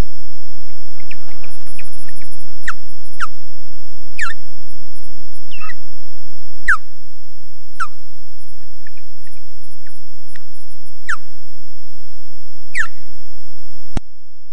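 Osprey giving a series of sharp whistled alarm calls, each slurring steeply downward, about eight of them spaced a second or two apart, a sign of the bird defending its nest. A steady high-pitched electronic whine runs underneath, and a click comes near the end.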